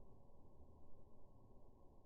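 Near silence: a faint, steady low background noise with no distinct events.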